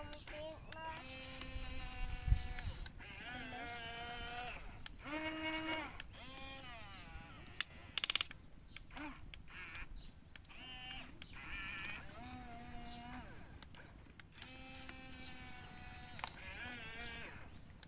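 Remote-control XCMG XE490DK model excavator's electric motors whining in spells of one to two seconds as the arm and bucket move, each spell starting and stopping with a slight rise and fall in pitch. A short burst of rapid clicking comes about eight seconds in.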